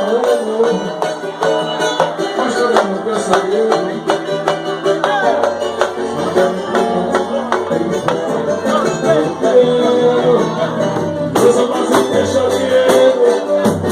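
A live samba band playing with plucked strings and hand percussion on a steady beat. A low bass part comes in about five seconds in.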